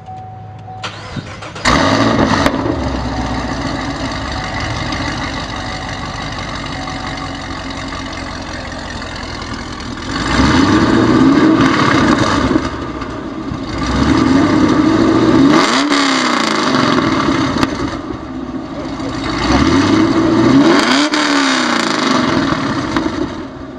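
2010 Chevrolet Camaro SS's 6.2-litre L99 V8, breathing through Kooks 1 7/8-inch long-tube headers and a Corsa cat-back exhaust, starts up with a sudden flare about two seconds in and settles into a steady idle. It is then revved three times, each rev rising and falling back to idle over a couple of seconds.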